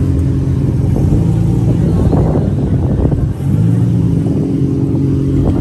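Car engine idling with a loud, steady low drone, which turns rougher for about a second in the middle.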